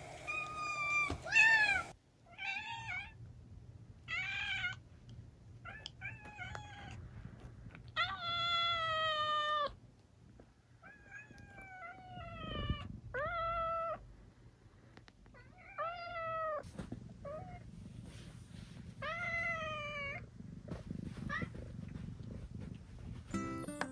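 Young brown tabby kittens meowing over and over, a dozen or so separate high calls, many dipping in pitch at the end, with one long drawn-out meow about eight seconds in. They are begging to be fed.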